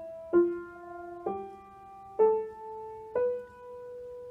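Piano notes struck one at a time, about one a second, four in all, each a step higher than the last, over a held lower note: a beginner's finger exercise with the fourth fingers starting on C and the hands meeting in the middle.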